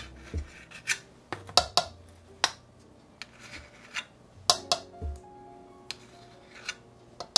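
Metal measuring spoon scraping and clicking against the rim of a baking powder can as level half-teaspoons are scooped out, with soft taps as the powder is tipped into a bowl of almond flour. Short, sharp clicks and scrapes, a dozen or so, irregularly spaced.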